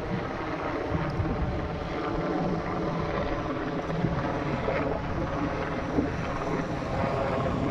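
Sikorsky SH-60 Seahawk helicopter flying low overhead, its main rotor and twin turboshaft engines making a steady, unbroken sound.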